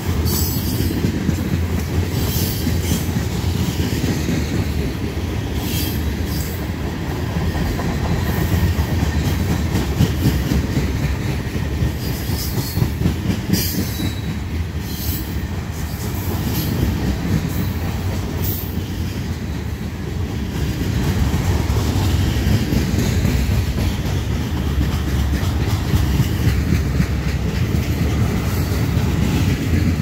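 Freight train cars rolling past at close range: a steady heavy rumble and clatter of steel wheels on the rails. Brief high-pitched wheel squeals come now and then, mostly in the first half.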